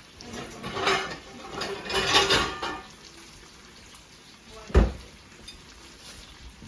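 Pots, pans and utensils clattering in a burst of handling, followed a couple of seconds later by a single heavy knock.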